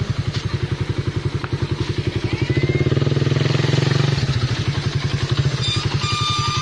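Motorcycle engine running at a steady low speed with an even pulsing beat, rising a little in level for a second or so in the middle.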